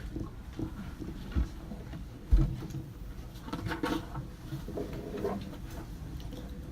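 University library ambience: a steady low rumble with scattered small clicks and rustles of people working at desks. A dull thump comes about a second and a half in and a louder one about a second later, followed by a run of light clicks.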